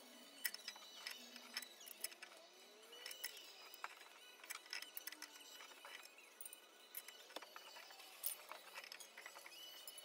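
Faint, scattered light clicks and clinks of metal hand tools being handled, coming at irregular intervals.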